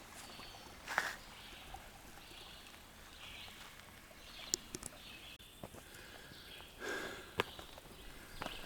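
Faint footsteps climbing a flight of trail steps, a few scattered footfalls, with hard breathing from the climb.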